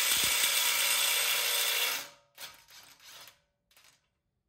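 Cordless impact wrench with a 35 mm socket on the front CV axle nut, hammering at first and then running steadily until it stops about two seconds in. A few faint clinks follow.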